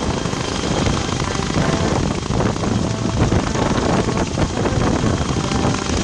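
CH-46 Sea Knight tandem-rotor helicopter hovering, its rotors and engines running steadily.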